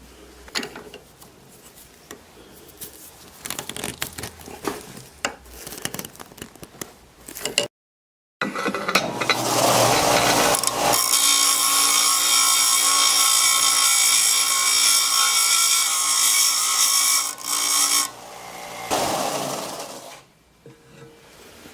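Light knocks and clicks of handling wood and tools, then a power tool runs steadily on wood for about ten seconds with a constant motor whine, followed by a second shorter run.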